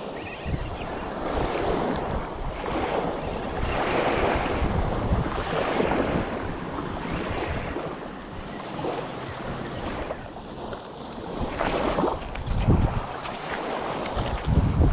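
Sea waves washing with wind blowing across the microphone, the noise swelling and easing every second or two, with heavier wind buffets near the end.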